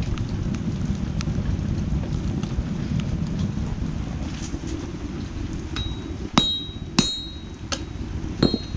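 Hammer blows on a steel knife blank on an anvil: a few sharp, ringing metallic clangs in the second half, three of them loud, over a steady low rumble.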